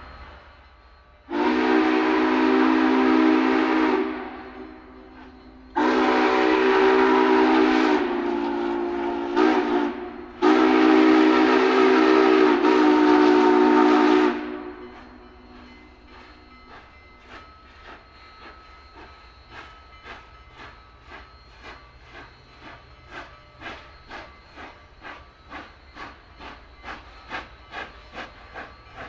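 Union Pacific 844 Northern steam locomotive blowing its deep chord whistle in three long blasts, the first trailing off in an echo. The engine then starts pulling, its steam exhaust chuffing in regular beats that quicken and grow louder.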